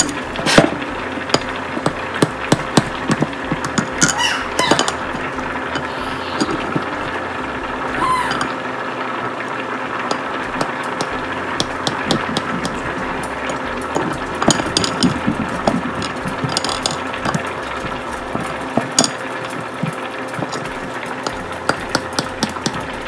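Kitchen knife slicing through a block of cheese and tapping on the cutting board, irregular clicks and taps that come in little runs, over a steady mechanical hum.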